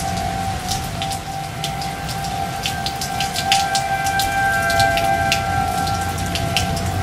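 Steady rain with many scattered drop clicks and a low rumble. A constant mid-pitched tone holds underneath.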